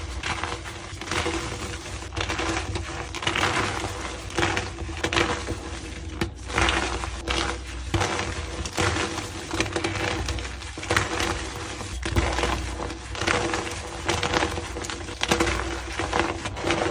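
Blocks of plain gym chalk crunching and crumbling as they are crushed: a dense, irregular run of crisp crackles that swells and fades every second or so.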